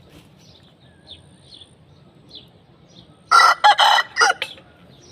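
An Aseel rooster crowing once, about two-thirds of the way in: a short, loud crow of about a second, broken into several short pieces. Faint small-bird chirps sound in the background.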